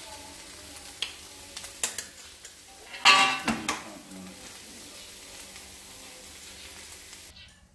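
Leftover meat sizzling in a hot wok, a steady hiss with a few sharp clicks and one loud metallic clatter of a utensil against the wok about three seconds in. The sizzling cuts off abruptly just before the end.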